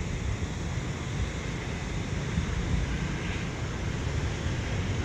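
Wind buffeting the camera microphone: a steady low rumble with a faint hiss over it.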